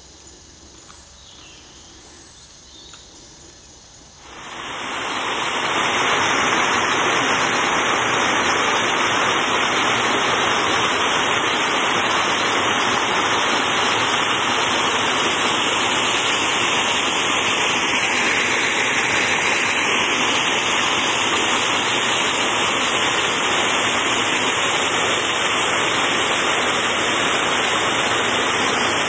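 Water gushing through the open paddles of a canal lock gate into the lock chamber: a loud, steady rush that swells up about four seconds in, after a few seconds of faint outdoor quiet.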